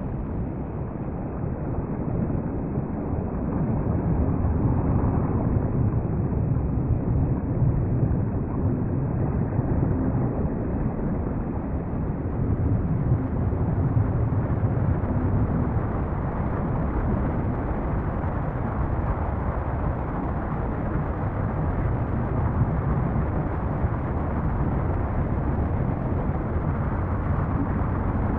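Deep, steady rumbling roar from a composed soundscape evoking a volcanic eruption, with no separate blasts; it swells slightly a few seconds in.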